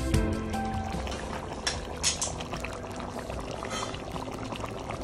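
Thick chicken curry boiling in a pan, its bubbles popping and plopping with a few louder pops, after a strain of background music fades out about half a second in.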